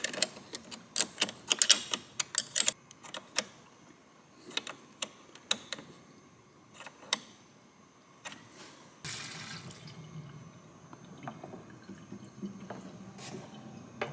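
Small wrench clicking on the battery's terminal clamp nut as it is tightened, a quick run of clicks and then a few single ones. From about nine seconds, coolant pouring from a jug into the coolant expansion tank, a steady liquid wash.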